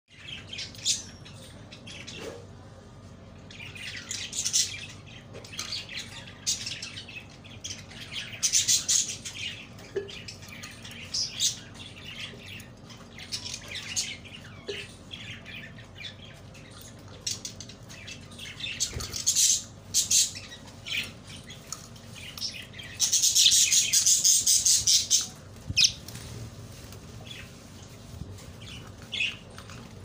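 Budgerigars chirping and chattering in short, scattered calls, with a longer, louder stretch of calling about three quarters of the way through.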